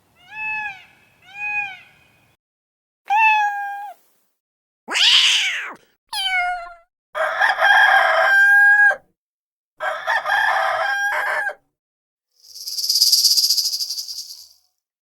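A run of separate animal-call sound effects with short gaps between them, mostly rooster and chicken calls. There are two long crowing calls near the middle and a breathy hiss near the end.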